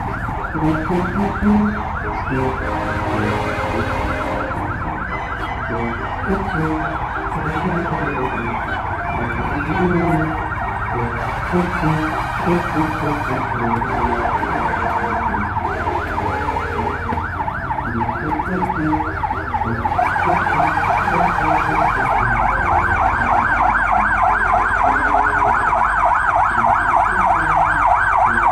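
Vehicle siren in a rapid yelp, its pitch swinging up and down several times a second, getting louder about twenty seconds in.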